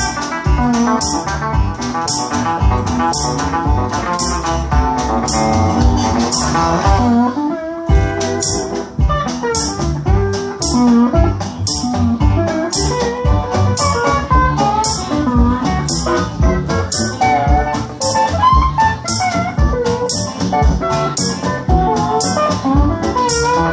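Live country-blues band playing an instrumental break between sung verses: steel guitar playing sliding lead lines over electric guitar, upright bass and a steady beat.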